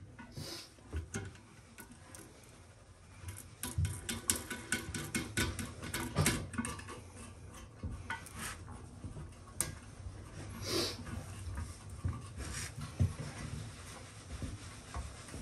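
A nut being turned by hand onto a cistern-to-pan bolt of a close-coupled toilet: a quick run of small clicks and scrapes a few seconds in, then scattered clicks.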